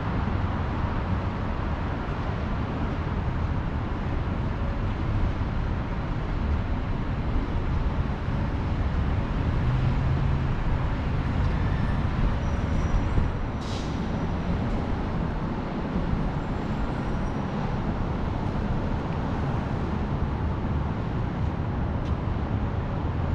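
Downtown street traffic noise: a steady rumble of passing cars, with a short hiss a little past halfway through.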